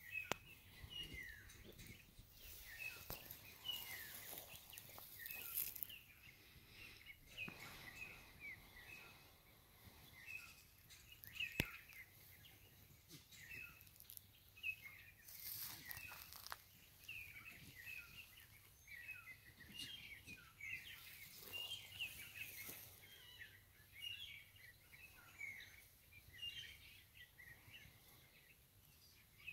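Faint, many small birds chirping continually in the background. A single sharp click about a third of the way through.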